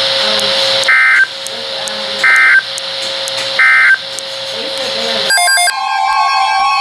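NOAA Weather Radio receiver hissing, then the EAS end-of-message code: three short, identical data bursts about 1.3 seconds apart, closing the severe thunderstorm warning. About five seconds in, the hiss cuts off and a steady cluster of tones begins.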